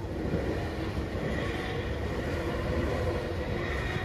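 Enoden (Enoshima Electric Railway) train running, a steady rumble with a faint high whine that grows a little stronger about a second in.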